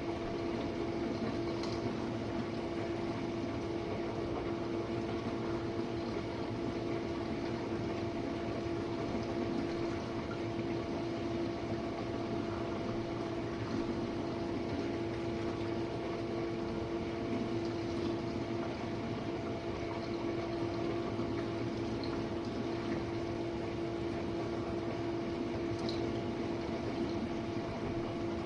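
Jenn-Air dishwasher running mid-cycle: a steady pump hum with water swishing inside the tub. It sounds healthy, running normally.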